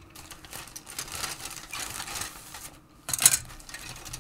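Plastic model-kit sprues rustling and clicking as they are handled. About three seconds in comes a louder, sharp clatter as a sprue of parts is put down.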